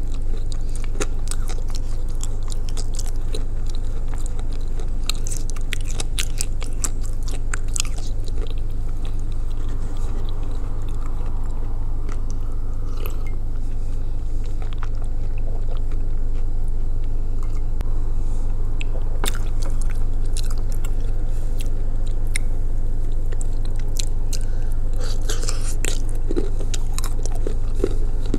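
Close-up biting and chewing of pieces of Ural clay soaked in blue Uzbek clay, with irregular sharp crunches and wet chewing. A steady low hum runs underneath.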